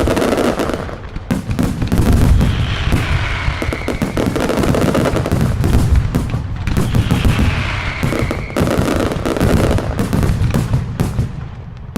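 Daylight fireworks firing rapid, dense strings of loud bangs, one sharp report after another, with hardly a pause.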